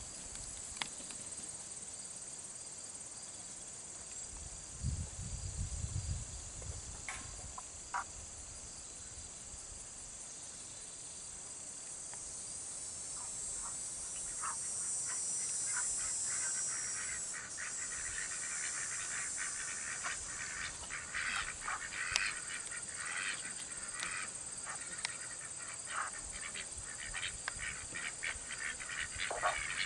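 A steady high-pitched insect chorus of crickets or cicadas, louder about halfway through. Over it, ducks give many short, quick calls in the second half, with a couple of single chirps earlier on.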